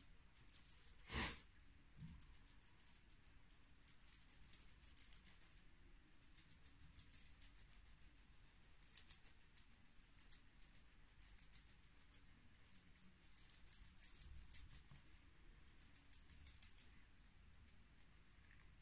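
Near silence with faint, quick irregular ticking and patting as makeup is blended on the face with a sponge, and one louder click about a second in.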